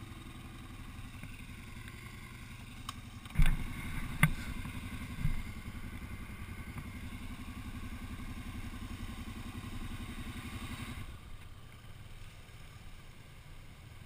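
ATV engine running, with a few sharp clunks about three and a half seconds in. The engine then runs harder and steadier for about seven seconds before dropping back near the end.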